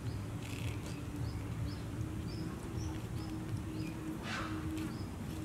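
Outdoor ambience: faint short high chirps repeating about two or three times a second over a steady low hum, with a brief rustle about four seconds in.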